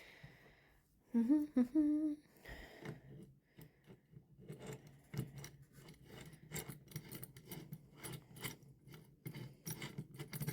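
A woman hums two short notes, then small parts of a microscope are handled and fitted together: a run of quick plastic and metal clicks and rattles.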